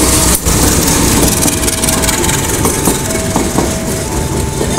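Matarmaja passenger train running past a level crossing, its carriages giving a steady loud rumble and rush. Over it a two-pitch crossing warning siren keeps sounding in short alternating tones.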